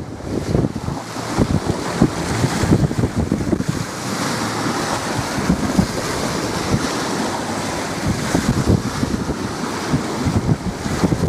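Strong wind blowing on the microphone: a rough, irregular rumble of gusts over a steady hiss.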